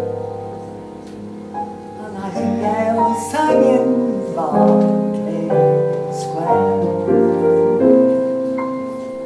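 Acoustic piano playing a slow romantic ballad, a new chord struck about once a second.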